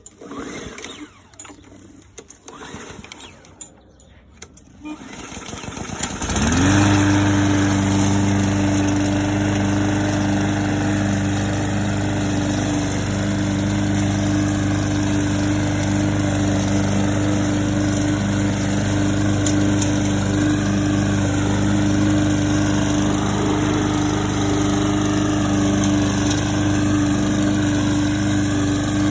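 125 cc lawn mower engine, freshly filled with oil and petrol, starting: after a few seconds of brief handling noises it catches about six seconds in, rises quickly in pitch and settles into steady running.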